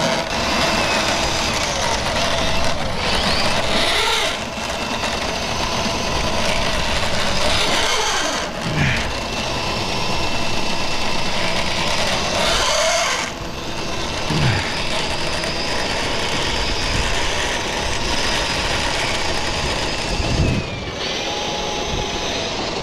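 Milwaukee powered drain snake running, its motor spinning a steel cable fed into a kitchen sink waste pipe to clear a partial blockage. The motor runs steadily, dipping briefly a few times.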